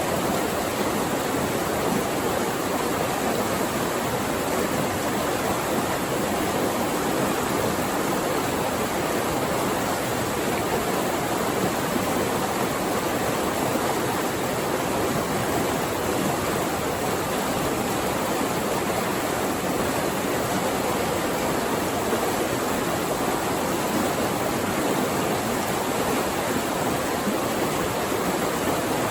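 Flowing water rushing steadily over rocks, an even unbroken wash of sound.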